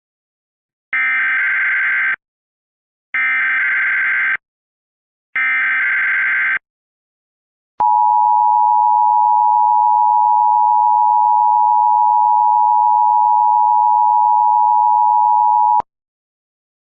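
Emergency Alert System SAME header: three bursts of digital data tones, each about a second long, about a second apart. Then the two-tone EAS attention signal (853 and 960 Hz) is held steady for about eight seconds and cuts off sharply. Together they mark the start of an emergency alert broadcast.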